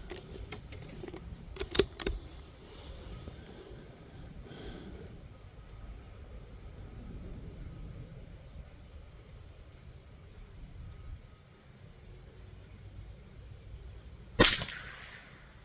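Two sharp clicks about two seconds in, typical of a scope's windage adjustment being turned two clicks, then a single .22 LR rifle shot near the end with a short ring after it.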